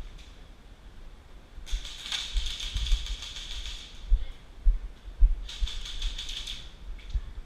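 Airsoft gun firing two full-auto bursts of rapid mechanical clicking, each about a second and a half long. Dull low bumps sound in between.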